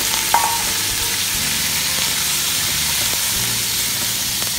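Diced raw boneless chicken sizzling steadily in hot oil in an aluminium karahi, freshly added and being stirred with a wooden spatula. There is a brief metallic clink a moment in.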